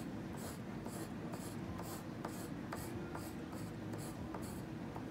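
Graphite pencil scratching on paper in quick back-and-forth hatching strokes, about four strokes a second.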